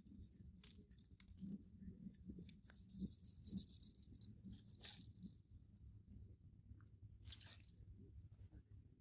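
Near silence, with a few faint, brief crunches and rustles from hands pulling a tip-up line up through a hole in the ice.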